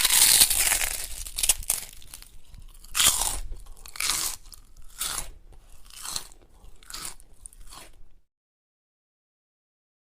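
A crunchy bite into food, then chewing: a string of crunches about one a second, growing fainter, stopping about eight seconds in.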